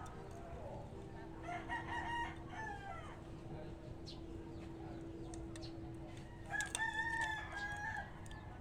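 A rooster crowing twice, faintly, once about a second in and again near the end, over a faint steady hum.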